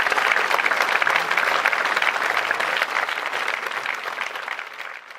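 Theatre audience applauding: dense clapping that slowly fades toward the end.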